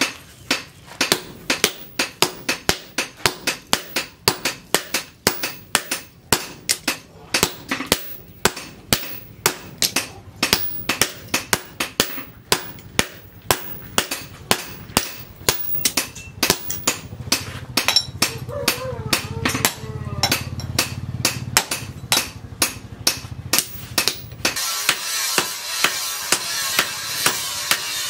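Hammer blows on hot steel against an anvil, evenly paced at about three strikes a second, as the leaf spring is forged into an axe head. About 24 seconds in, a steady loud hiss with a wavering tone takes over, and the blows fade beneath it.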